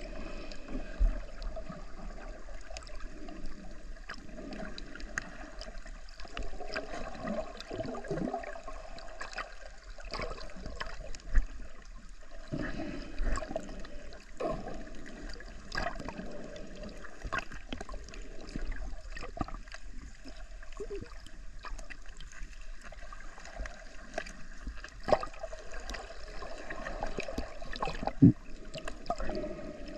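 Muffled underwater sound picked up by a camera held beneath the sea surface: a steady wash of moving water, broken by many small clicks and a few louder knocks scattered through.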